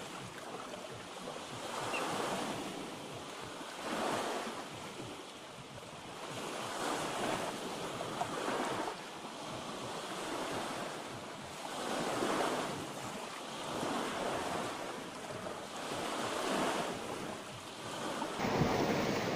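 Sea waves washing in on the shore, swelling and fading every couple of seconds, with wind buffeting the microphone.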